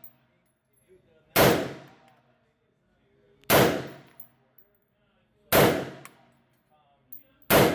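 Sig Sauer M400 Tread AR-style 5.56 pistol fired in slow single shots, four shots about two seconds apart, the last near the end, each ringing briefly off the concrete of an indoor range. Light metallic clinks of spent casings fall between the shots.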